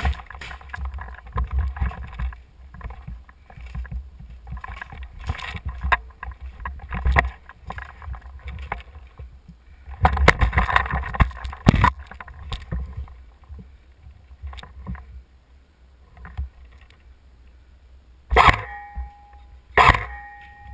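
Footsteps crunching and scraping over rubble, broken plaster and loose wooden laths, with irregular knocks and rustles of gear and a steady low rumble. There is a busier stretch of crunching about halfway through, and two sharp cracks, each with a short ring, near the end.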